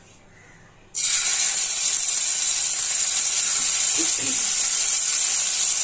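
Marinated chicken pieces going into hot oil in a kadai start sizzling loudly and suddenly about a second in, then keep up a steady frying hiss.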